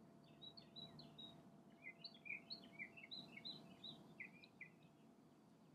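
Faint songbird singing: a quick, varied run of short high chirps that stops shortly before the end.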